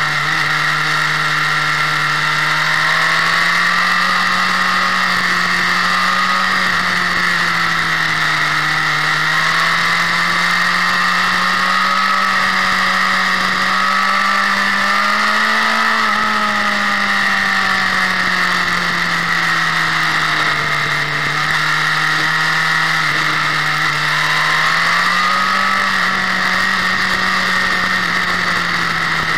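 Motorcycle engine running at speed under a steady rush of wind, its pitch rising and falling gently several times as the rider opens and eases the throttle, highest about halfway through.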